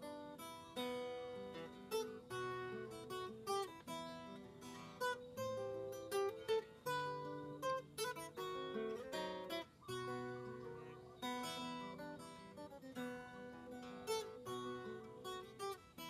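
Background music on acoustic guitar: a steady stream of plucked notes and light strums.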